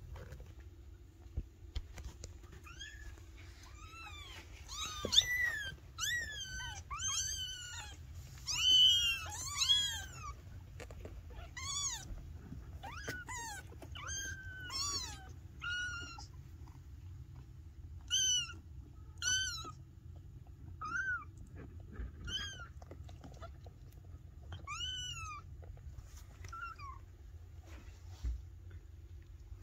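Very young Maine Coon kittens meowing: many short, high mews that rise and fall in pitch. They crowd over one another through the first half and come more sparsely toward the end.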